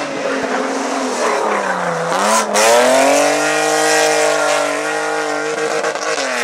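BMW E36 3 Series rally car engine revving hard as the car drifts with its rear tyres spinning and smoking. The engine note sags for about two seconds, then climbs sharply with a brief loud crack and is held at high revs, easing slightly before falling away near the end.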